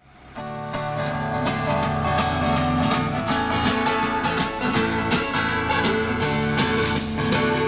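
A band playing the instrumental opening of a song, led by strummed guitars with a steady beat, starting about half a second in.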